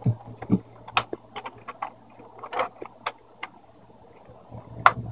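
Plastic screen bezel of a Lenovo G780 laptop being pried loose: irregular sharp plastic clicks and snaps, with two dull knocks near the start and the loudest snap near the end.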